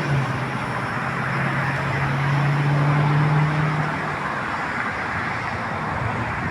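Steady road traffic noise, with one vehicle's low engine hum that drops slightly in pitch at the start and fades out about four seconds in.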